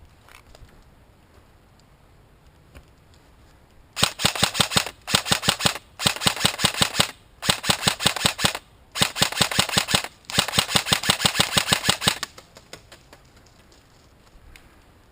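Airsoft gun firing rapid full-auto bursts close by: six bursts over about eight seconds, starting about four seconds in, with short pauses between them.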